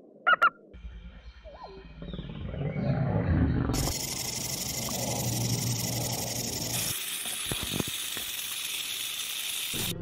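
Two short, sharp calls from a bald eagle just after the start, then a western diamondback rattlesnake rattling its tail: an even, high hissing buzz from about four seconds in until near the end, over a low rumble.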